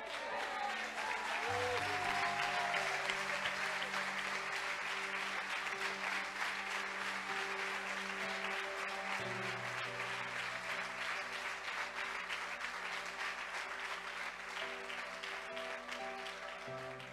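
Congregation clapping and applauding over slow, sustained keyboard chords. The applause gradually thins and dies away near the end while the held chords continue.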